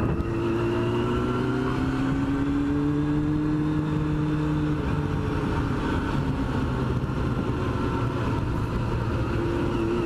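Yamaha FZR sport bike's inline-four engine pulling away, its pitch rising steadily for the first few seconds and then holding at a cruise, with wind rushing over a helmet-mounted camera.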